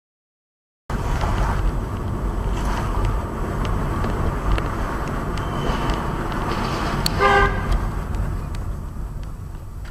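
Steady road and engine noise inside a moving car, starting abruptly about a second in. About seven seconds in, a car horn sounds one short blast, the loudest sound.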